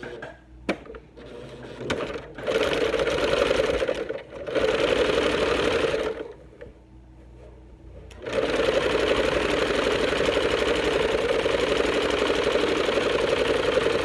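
Electric sewing machine stitching a straight seam through layered cotton: two short runs with brief stops, the backstitch at the start of the seam, then running steadily from about eight seconds in.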